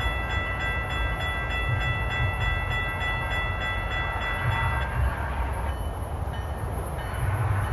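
A railroad crossing bell ringing in quick repeated strokes, which stops about five seconds in. Under it, a steady low rumble from the approaching train.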